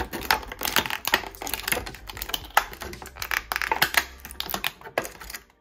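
Dense, irregular crackling and clicking of clear sticky tape and plastic toy packaging being pulled and worked free by hand, dying away near the end.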